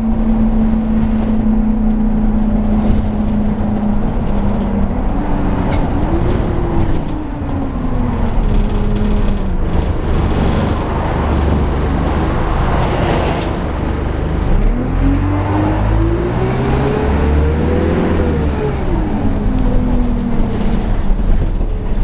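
Wright Cadet single-deck bus heard from inside the saloon: the diesel engine runs at a steady note, then its pitch rises and falls twice as the bus accelerates, the second rise longer and higher, over a constant rumble of road and body noise.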